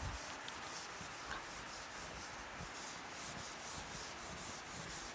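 Board duster rubbed back and forth across a chalkboard, wiping off chalk: a faint, soft scrubbing.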